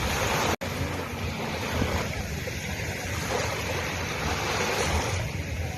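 Sea waves breaking and washing up a beach: a steady rush of surf with some wind on the microphone. The sound drops out for an instant about half a second in.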